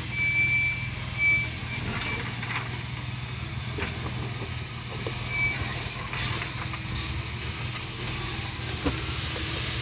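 Jeep Wrangler YJ's engine running low and steady as it crawls down over rocks, with scattered knocks and crunches from the tyres and chassis on stone. A brief high squeal sounds about a second in and again about five seconds in.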